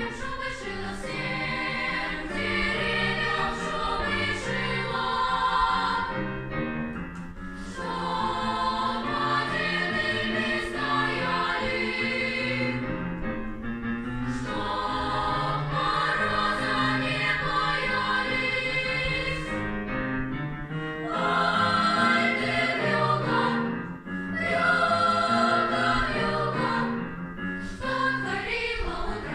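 Choir singing a song in long phrases, with brief breaks between them.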